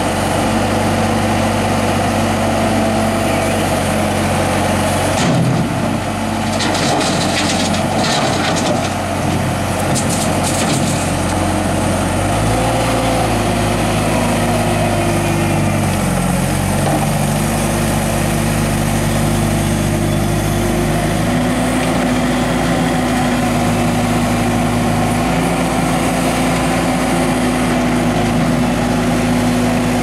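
Bobcat T300 compact track loader's diesel engine running steadily while the machine drives and lowers its bucket, its note stepping up and down several times as engine speed changes. A stretch of clattering about five to eleven seconds in.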